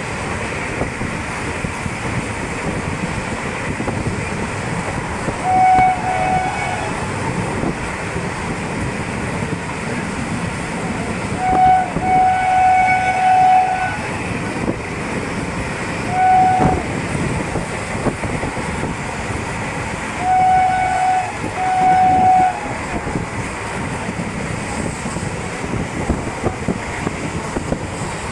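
A passenger train runs with a steady rumble and wheel clatter, heard from an open coach doorway. An electric locomotive's horn sounds several times on one pitch: short toots and one longer blast of about two seconds.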